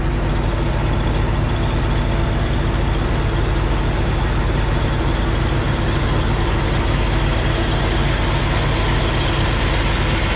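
Semi-truck's diesel engine running steadily, heard from inside the cab as the truck moves slowly.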